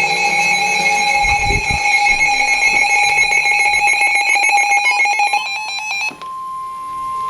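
Emergency Alert System alert tones for a tornado warning. A harsh, buzzy electronic alarm sounding several pitches at once turns to rapid stuttering near the five-second mark. About six seconds in it gives way to a single steady, pure-pitched warning tone.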